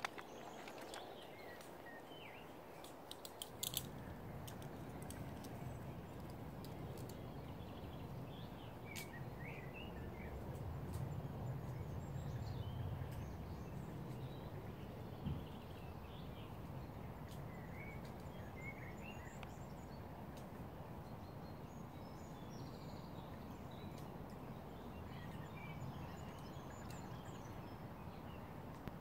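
Outdoor ambience: a steady low rumble with scattered brief, high bird chirps. A few sharp clicks come about three to four seconds in, just before the rumble sets in.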